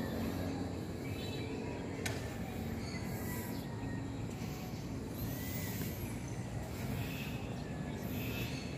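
Outdoor ambience at dusk: a steady low background hum with faint bird chirps now and then, one a high sweeping call about halfway through.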